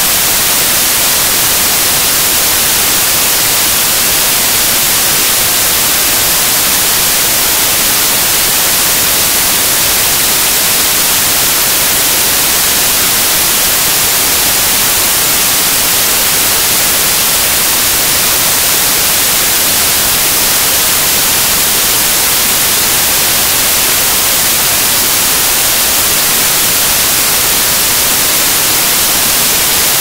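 Loud, steady white-noise hiss, even and unchanging, brightest in the high range.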